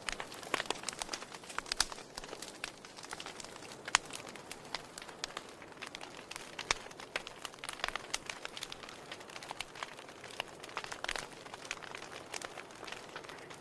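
Wood fire burning in a fireplace: firewood crackling with many sharp irregular pops over a soft hiss, one louder pop about four seconds in.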